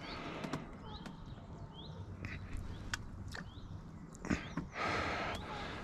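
Birds chirping in short, separate calls over scattered clicks, with a couple of brief rustling noises about four and five seconds in.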